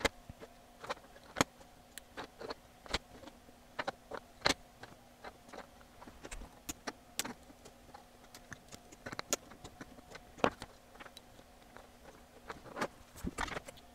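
Irregular small clicks and taps of a circuit board being handled on a bench as new electrolytic capacitors are pushed into it, with a faint steady hum underneath.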